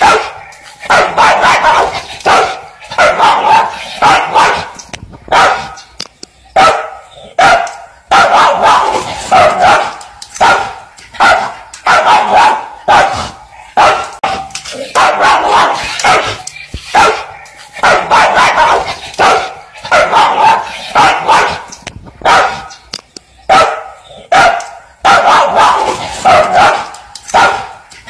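A dog barking over and over, in quick runs of loud barks separated by short pauses.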